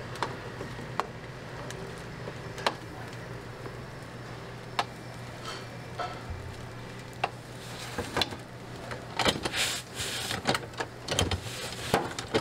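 Sharp taps and clicks of a plastic rice paddle against a steel bowl and the plates of an electric nurungji press as cooked rice is scooped and spread. Near the end comes a run of louder clatter and scraping as the press's metal lid is handled and closed. A steady low hum runs underneath.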